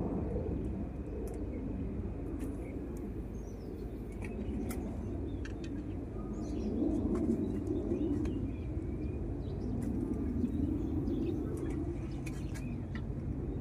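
Outdoor bird sounds: a dove cooing in low swells, with small birds chirping and a steady low rumble underneath.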